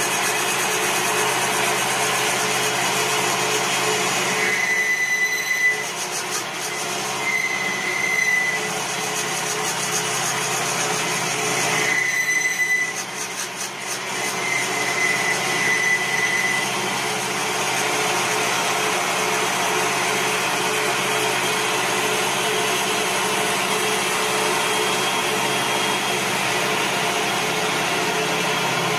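CNC wood lathe turning a wooden spindle, its motor and cutter making a steady mechanical whir as the blade shaves the spinning wood. A short high whine comes and goes several times in the first half.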